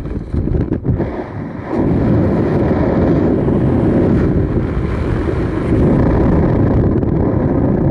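Wind buffeting the camera's microphone during descent under an open parachute canopy: a loud, steady rush that eases briefly about a second in, then picks back up.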